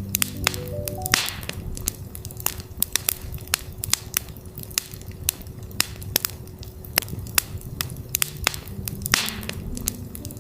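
Campfire crackling, with frequent sharp snaps and pops, over a steady 369 Hz tone. Soft ambient notes step upward right at the start and again near the end, and there is a brief hiss about a second in and again near the end.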